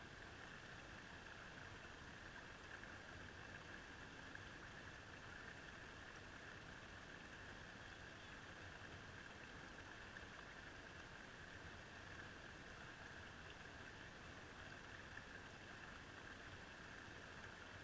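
Near silence, with the faint steady hiss of a shallow stream.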